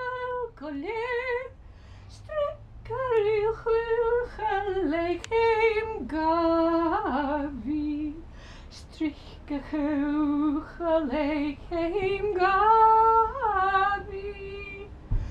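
A woman singing solo and unaccompanied: a slow melody of held notes with vibrato, sliding between pitches, broken by short pauses between phrases.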